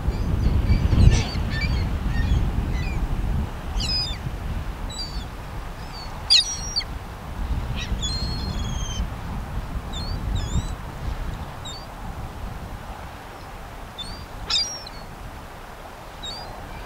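Small birds chirping in short, high calls scattered through the clip, over a low rumble that is strongest in the first few seconds.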